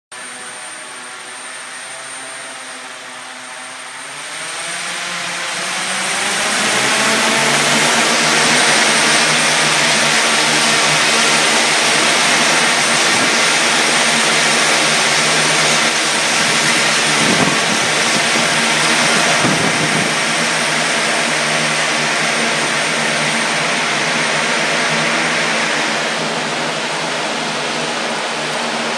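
Propellers of a multi-rotor flying bicycle, driven by battery-electric motors, spinning up from a lower hum into a loud steady whirring drone over about four to seven seconds in as it lifts off and flies. The sound eases slightly near the end as it moves away.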